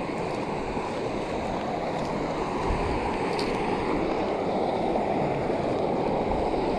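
Small mountain stream tumbling over rocks and a little cascade: a steady rush of water.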